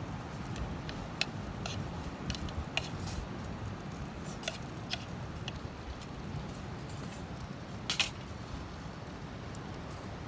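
Wood campfire crackling: irregular sharp pops over a steady low rumble, the loudest pop about eight seconds in.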